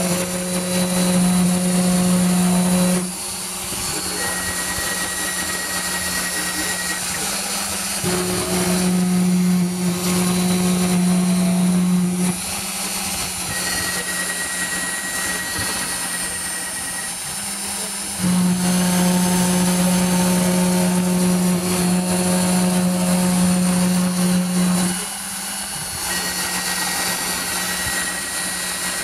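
CNC router with a Kress spindle motor engraving a wood-veneered board, running with a steady high whine. A lower hum swells louder in three long stretches as the machine works through the pattern.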